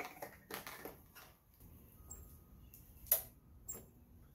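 A few scattered light clicks and taps of hands working at a lawn mower's plastic fuel filler and cap, the loudest about three seconds in.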